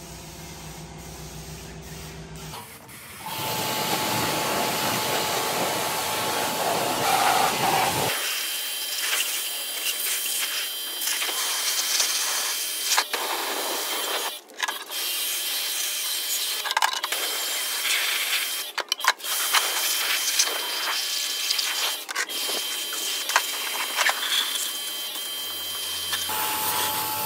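Pressure washer jet hissing as it blasts grime off a cast-iron engine block and its parts, starting about three seconds in and running on with brief breaks.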